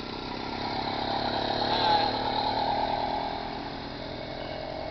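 Small 49cc engine of a motorized bicycle running as the bike passes close by, getting louder to about two seconds in, then fading as it rides away.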